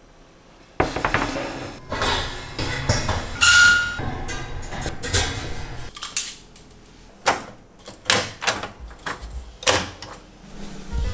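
Stainless steel kitchen fittings being taken down and handled: an irregular run of clatters, knocks and scrapes from a wire rack and range hood grease filters, with a brief metallic ring about three and a half seconds in.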